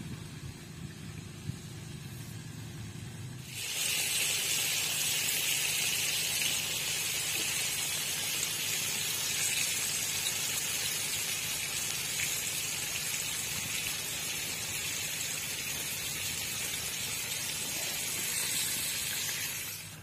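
Chicken pieces sizzling in hot frying oil, a steady loud hiss that starts suddenly about three and a half seconds in.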